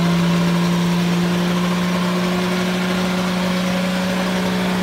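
Off-road jeep's engine running steadily at one speed, a constant hum without revving.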